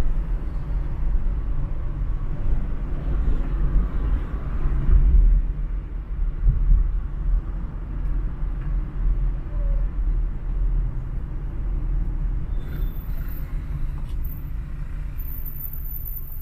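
Steady low road rumble of a car driving through city traffic, swelling a little louder a couple of times.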